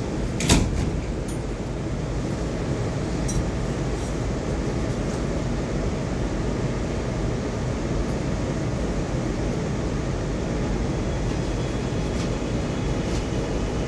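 An MTA R211 subway train running on the track, a steady rumble of wheels on rail. There is a sharp clank about half a second in and a few fainter clicks later.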